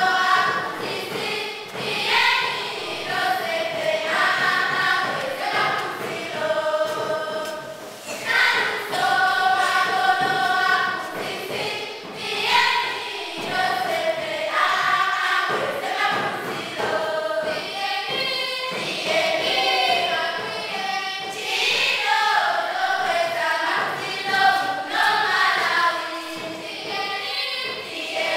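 A group of girls singing a traditional Malawian greeting song together in short phrases.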